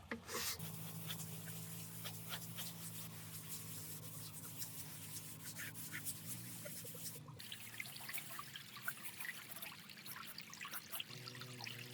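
Water trickling and dripping, with scattered small ticks and splashes. A low steady hum runs under it, stops about seven seconds in, and comes back near the end.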